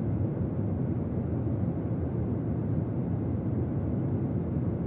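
Steady low rumble of airliner cabin noise.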